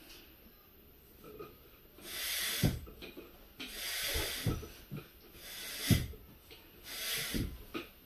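Hand-operated stand air pump inflating a balloon: four strokes of the handle starting about two seconds in, each a rush of air ending in a thump at the bottom of the stroke.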